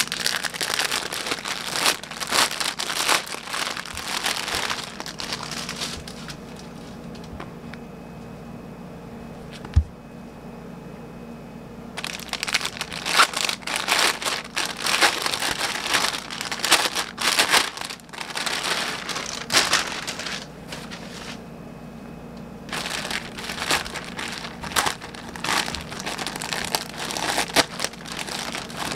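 Clear plastic poly bags crinkling and rustling as hands open them and pull clothing out, in three stretches with quieter pauses between. A single short thump comes about ten seconds in.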